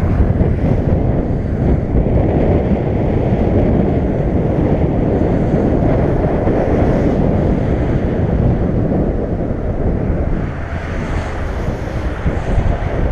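Strong wind buffeting the microphone, a loud steady rumble that eases slightly near the end, with surf breaking on a rocky shore below.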